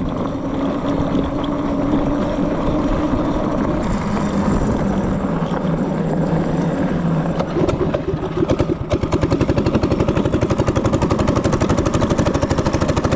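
Mini bike's small engine running, then from about eight seconds in settling into a loud, fast, even putter.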